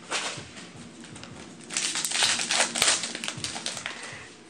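Foil booster-pack wrapper crinkling as it is handled and torn open, loudest for about a second and a half in the middle.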